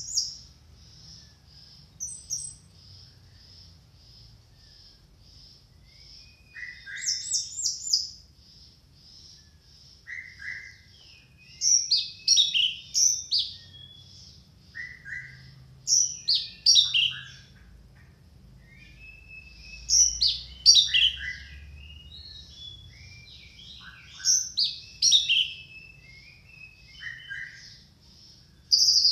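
Orange-headed thrush singing loud, varied phrases in bursts every few seconds, over a soft high chip that repeats two or three times a second throughout.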